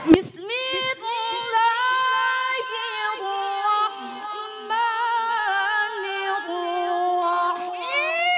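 A woman's voice reciting the Qur'an in melodic tilawah style, amplified through a handheld microphone, holding long notes with wavering ornaments that step down in pitch. A sharp pop comes just after the start.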